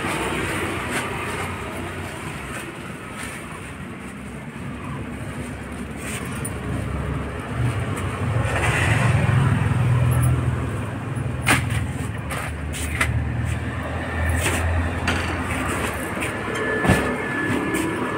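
A motor vehicle passing on a road, its low engine rumble swelling to a peak about halfway through and then fading, with a few sharp clicks in the second half over steady street noise.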